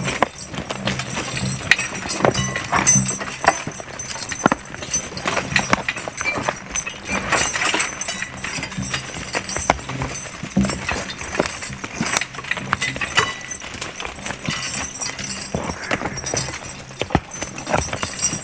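Draft horses walking over rocky ground, their hooves clopping irregularly, mixed with the knocks and rattles of the horse-drawn cart they pull over the rocks.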